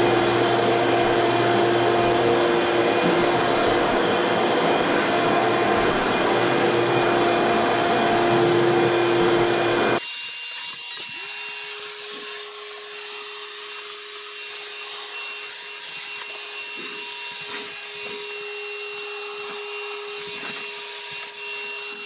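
Electric floor sander running steadily on a hardwood floor. About ten seconds in the sound cuts abruptly to a quieter, thinner run of the machine with a steady whine.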